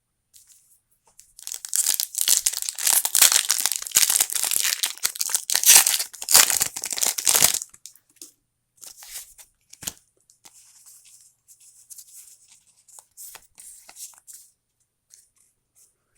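Foil Pokémon booster pack wrapper being torn open and crinkled, a dense crackly tearing for about six seconds, followed by faint rustling and small clicks as the cards are handled.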